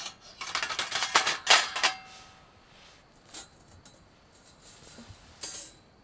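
Rattling and clinking of small hard objects, dense for about the first two seconds with a brief ring near the end of that run, then a few scattered clicks and a last short rattle near the end.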